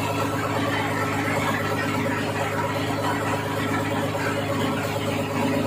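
River ferry's engine running steadily at a constant pitch, under a steady hiss of wind and water.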